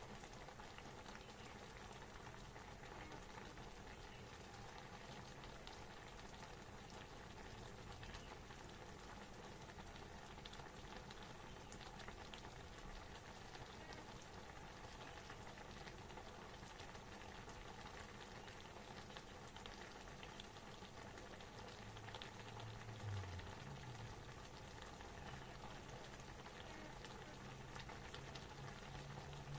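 Faint bubbling of a pot of clear vegetable soup boiling on the stove, a steady fine crackle of bubbles. A low thump comes about 23 seconds in, and a low hum starts near the end.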